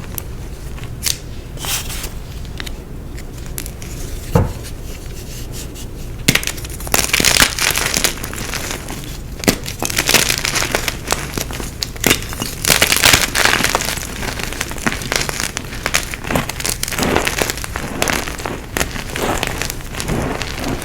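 Blocks of gym chalk being crushed: a few scattered sharp crackles at first, then dense, continuous crunching and crumbling from about six seconds in.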